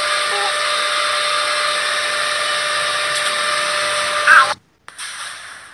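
Steady whooshing hiss of an electric blower-type machine with a constant whine in it. It stops abruptly about four and a half seconds in.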